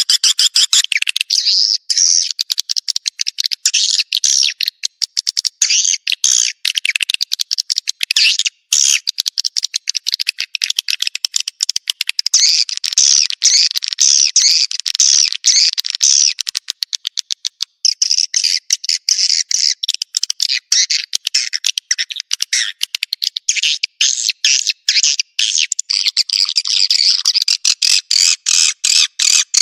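Swiftlet calling track ('suara panggil') of edible-nest swiftlet chirps and twitters, played to lure swiftlets into a nest house. It is a dense, fast stream of short, high-pitched chirps, chopped into rapid pulses, with no low sound at all under it.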